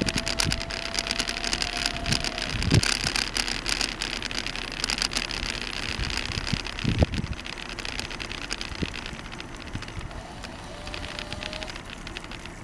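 Footsteps and handheld-camera handling noise while walking behind a dog, with scattered clicks and a few soft thumps. A faint steady hum sounds for the first couple of seconds and again briefly near the end.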